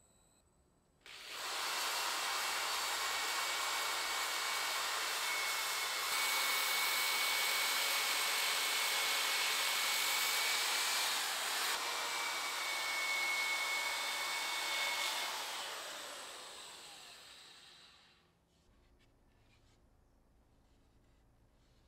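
Corded electric drill spinning a sanding disc against a maple bowl turning on a lathe: power sanding, a steady hiss with a thin motor whine. It starts suddenly about a second in and fades away a few seconds before the end.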